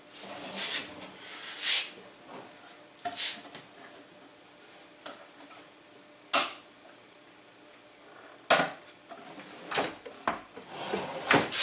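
Wooden kitchen-cabinet drawers being pulled open and pushed shut on their Blum slides, giving a series of separate knocks and clicks; the sharpest comes about six seconds in.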